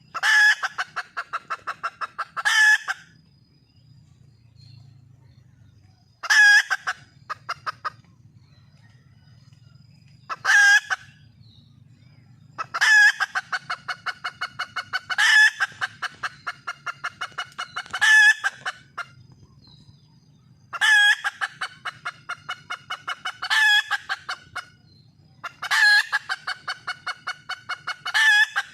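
Red junglefowl hen calling for a mate: about eight bouts, each opening with a loud note and running into a fast string of clucks for a second or two before a final loud note, with a few short single calls between the longer bouts.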